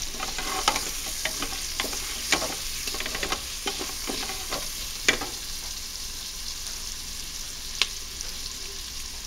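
Onions and garlic sizzling in the nonstick inner pot of a Power Pressure Cooker XL on its sear setting, with a wooden spoon stirring them and knocking against the pot now and then, the sharpest knock about five seconds in.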